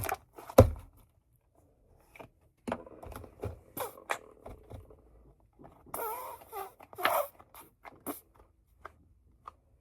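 Sticky fluffy slime being worked and squeezed by hand: scattered small clicks and wet squelches, with a denser squishy stretch about six to seven seconds in.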